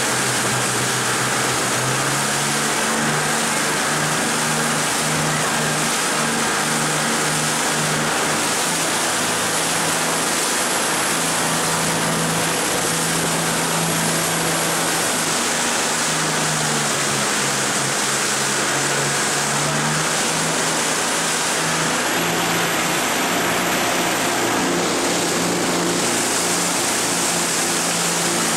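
Jet boat with three engines running at speed through rapids: a steady engine drone whose pitch shifts up and down a few times, under a loud, even rush of water.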